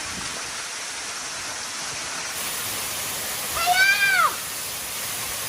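Waterfall rushing steadily, with a person's short exclamation rising and falling in pitch a little after the middle.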